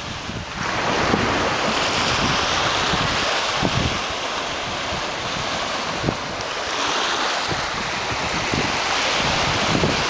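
Small waves breaking and washing up a sandy beach: a steady surf hiss that swells and eases, with wind gusting on the microphone.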